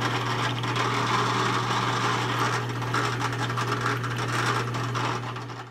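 Benchtop drill press running, its motor giving a steady hum, while the bit drills an oil-lubricated pilot hole through a thin sheet-metal disc. The sound stops abruptly near the end.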